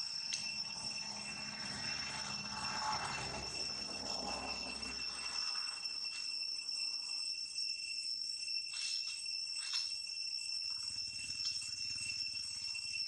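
Steady high-pitched insect drone, held on a few even tones, with faint rustling in the first half and a few soft ticks later on.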